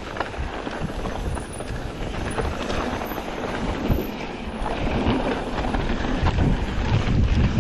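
Mountain bike descending a dirt trail: wind buffeting the microphone over the rumble and rattle of the tyres and bike on the dirt, growing louder as speed builds toward the end.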